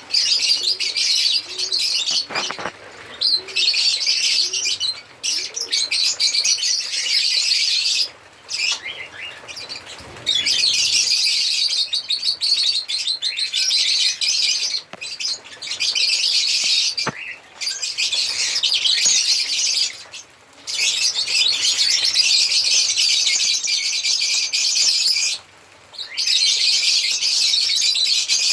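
A flock of lovebirds chattering and chirping continuously in rapid, shrill twitters, broken by a few brief pauses.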